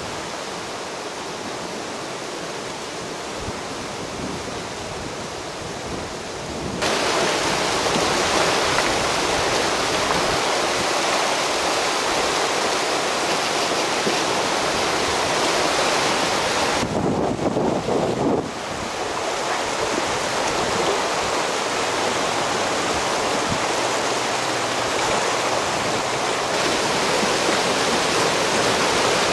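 Steady rushing of a flood-swollen river running high and fast against its bank. It grows suddenly louder about seven seconds in and is briefly muffled a little past the middle.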